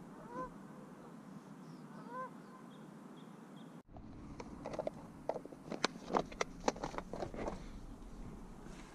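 Waterfowl calling twice in the first couple of seconds, each a short call that rises then falls, with faint small-bird chirps. Then a run of sharp clicks and knocks, the loudest sound, from fishing gear handled in a small boat.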